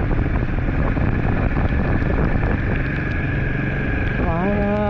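Royal Enfield Himalayan 452 motorcycle under way, its single-cylinder engine running under heavy wind noise on the microphone. A voice starts singing near the end.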